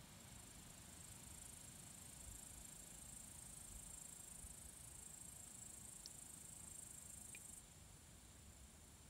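Faint, steady high-pitched trilling of insects that drops away suddenly about three-quarters of the way through, with two tiny faint chirps just before it stops.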